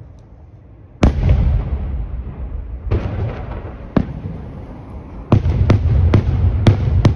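Daytime aerial fireworks shells bursting. A heavy bang about a second in trails off into a long rumble, with more bangs near three and four seconds. From about five seconds a quick string of sharp cracks comes, about two a second, over a continuous rumble.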